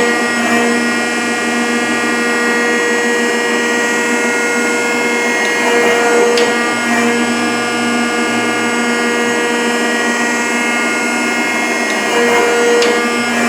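Rockford hydraulic planer running with a steady multi-tone whine, not yet cutting while the tool is being fed down toward the work. The tone shifts about every six seconds, and at least two of these shifts end in a sharp click.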